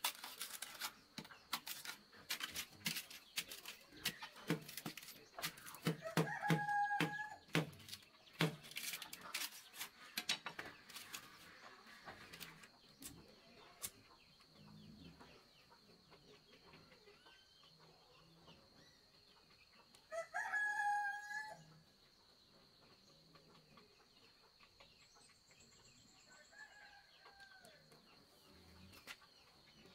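A knife blade striking and splitting the end of a dry bamboo stick into splinters: rapid sharp knocks and cracks for about the first twelve seconds. A rooster crows three times, once during the splitting, loudest about twenty seconds in, and faintly near the end.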